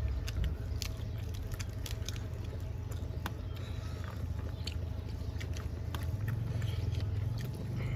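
Close mouth sounds of people chewing and smacking as they eat rice and pork intestine with their hands, with many small sharp clicks, over a steady low hum.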